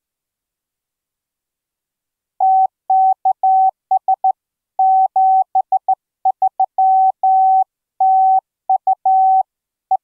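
Morse code sidetone from the ehoCW software keyer, keyed by hand on a USB MIDI straight key: a single steady mid-pitched tone switched on and off in dots and dashes, starting about two and a half seconds in.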